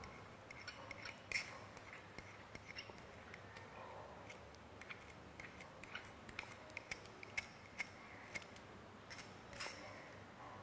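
Metal spatula scraping and tapping inside a porcelain basin, a quiet run of irregular clicks and scrapes as wet copper sulfate crystals are scooped out onto filter paper.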